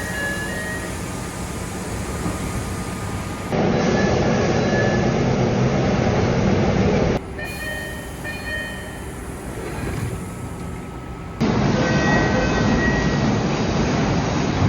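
MBTA Orange Line subway train door chimes in a run of separate clips, each a short electronic chime of two or three high notes over the rumble and hiss of the train and station. The sound cuts abruptly between clips about every four seconds.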